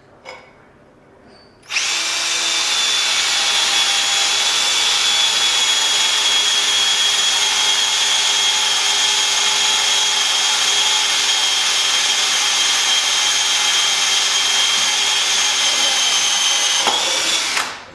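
Power drill running steadily at constant speed for about fifteen seconds, drilling a hole in a handrail pipe for a wall bracket, then stopping abruptly near the end.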